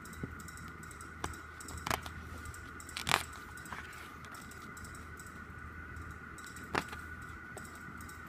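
Glossy photo-book pages being turned and handled: a handful of short, sharp paper crinkles and taps, the loudest about three seconds in, over a steady background hum.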